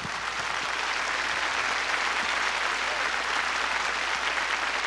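Audience applauding, a steady sustained clapping from a large crowd.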